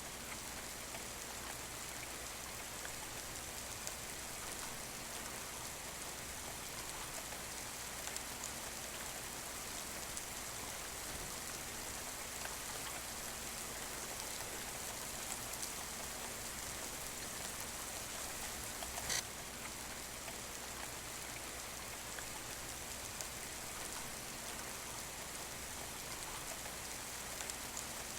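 Steady rain heard from inside a house: an even hiss with scattered drop ticks, and one sharper tap about two-thirds of the way through.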